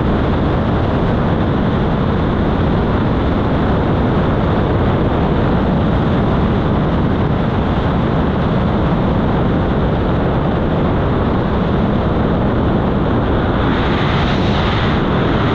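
Steady rush of freefall wind over a skydiver's camera microphone, a dense low noise that turns hissier near the end.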